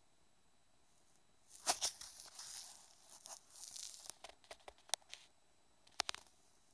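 Irregular gritty scraping and crackling with sharp clicks, starting about a second and a half in, of a drill bit grinding into the wet glass bottom of an aquarium.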